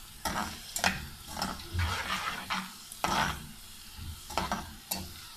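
Sliced onions sizzling as they fry in oil in an aluminium pot, with a spoon stirring and scraping against the pot in irregular strokes. The onions are just starting to turn golden.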